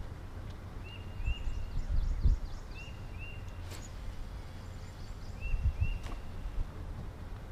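A bird calling repeatedly in pairs of short whistled notes that rise and then hold, a pair about every two and a half seconds. Underneath runs a low rumble with louder bumps, and there are two sharp clicks, one about midway and one near the end.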